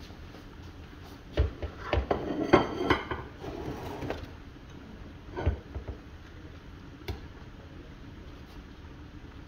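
Clattering knocks of kitchen cookware: a quick cluster of clinks and knocks about one to three seconds in, then single knocks later, over the steady low hiss of a covered pot of curry chicken simmering.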